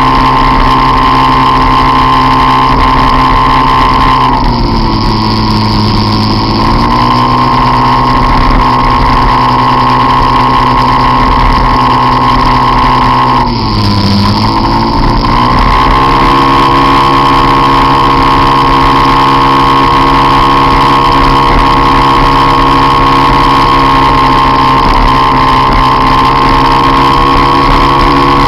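Peugeot Jetforce Compressor scooter's supercharged engine running at steady high revs under way, a loud steady drone. Twice the revs drop for about two seconds as the throttle is eased, then climb back.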